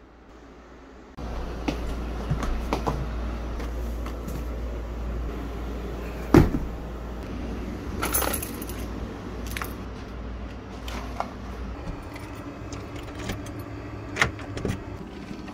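A string of clicks, knocks and clatter from objects being handled, over a low steady rumble. Near the end, keys jangle and a key turns in a door's deadbolt lock.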